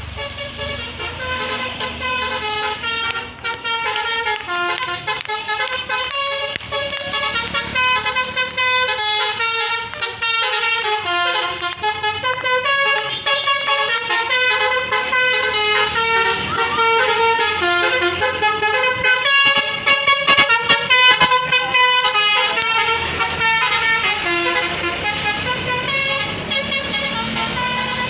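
Tour bus's multi-tone 'telolet' musical horn playing a long melody, note after note without a break, over a low rumble.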